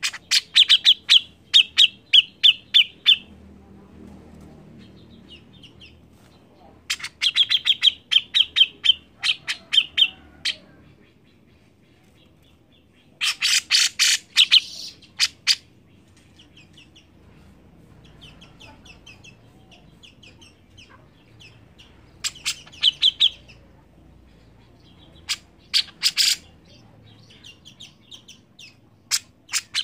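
Caged grey-cheeked bulbul (cucak jenggot) singing in repeated bursts of rapid, sharp chattering notes, each burst one to three seconds long with short pauses between.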